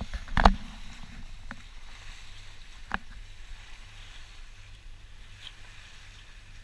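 Steady rush of water and wind around a sailing catamaran under way at sea, with a sharp knock about half a second in and a smaller one near three seconds.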